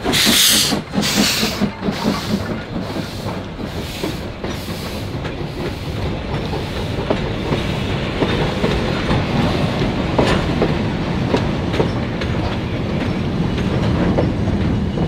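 Steam locomotive departing: loud exhaust chuffs with hissing steam from the open cylinder cocks for about the first two seconds, the beats fading as it pulls away. Then goods wagons roll past with a steady rumble and sharp wheel clacks over the rail joints.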